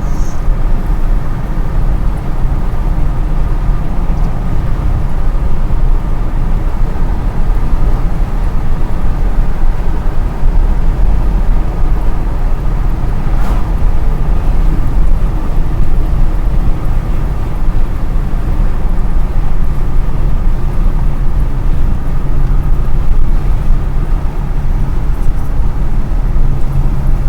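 Car driving at a steady speed, heard from inside the cabin: a continuous low rumble of engine and tyre noise with a faint steady hum above it.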